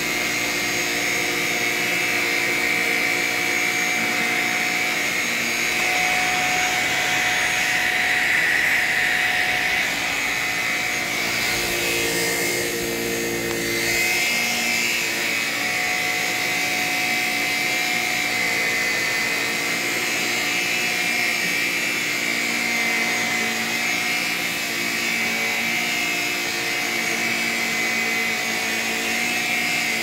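Shark Rocket Apex stick vacuum with a self-cleaning brush-roll head running steadily on carpet, a high motor whine held at an even pitch. A short rush of airy noise comes about twelve seconds in.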